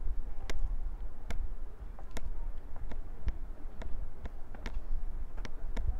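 Footsteps clicking on a hard path, roughly one or two a second and slightly irregular, over a steady low rumble of wind buffeting the microphone.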